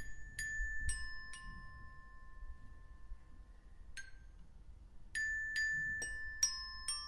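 Glockenspiel notes struck one at a time and left to ring: four in a slow rising-and-falling figure at the start, a single note about four seconds in, then a steadier run of notes near the end.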